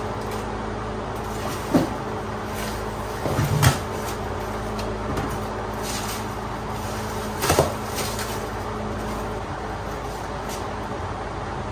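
Styrofoam flotation foam being torn and pried out of an aluminum Jon boat's seat compartment: scattered crunching and scraping, loudest about two, three and a half and seven and a half seconds in, over a steady low hum.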